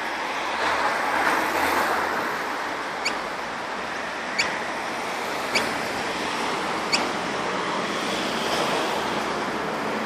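Four short, sharp bird calls about a second and a half apart, over a steady hiss of street traffic and wind noise.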